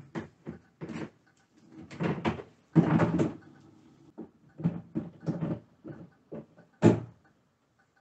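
Plastic clunks and knocks as the spin basket of a Zeny portable washer's spinner is lifted out and pushed back down into the tub, with the loudest clatter about three seconds in. A single sharp pop near the end is the basket latching in.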